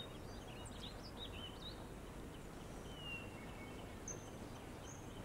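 Faint steady background ambience with scattered small bird chirps and short whistles, including one longer falling whistle about three seconds in.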